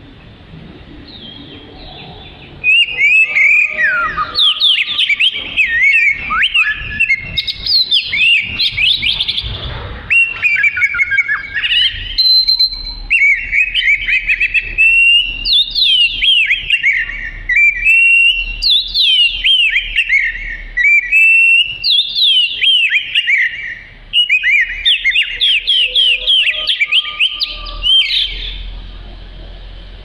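Oriental magpie-robin in full song: a loud, nearly unbroken run of quick whistled notes sliding up and down. It starts quietly, becomes loud about two and a half seconds in, breaks off briefly about three-quarters through, and eases off near the end.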